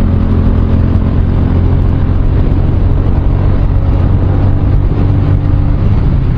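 Motorcycle engine running steadily under load, pulling uphill on a climbing ghat road.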